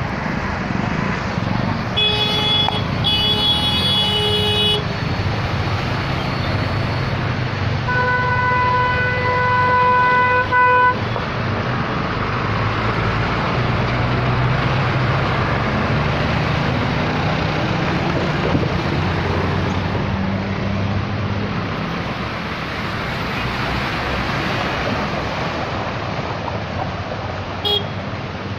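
Traffic crossing a flooded bridge: engines rumbling and tyres washing through water. A car horn sounds twice about two seconds in, and a different horn is held for about three seconds around eight seconds in.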